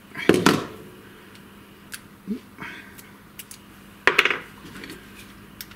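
Small metal clicks and taps of screwdriver bits and a magnetic bit holder being handled at the cordless screwdriver's nose, the loudest clicks about a third of a second in and about four seconds in.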